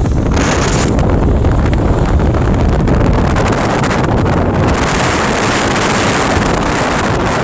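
Loud, steady wind buffeting a phone's microphone in a moving car, with a low rumble underneath.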